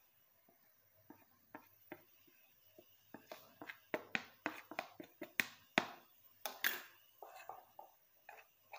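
Spoon scraping and tapping against a plastic bowl as powder is knocked out of it into a small bowl: a run of quick, light taps and scrapes, busiest in the middle.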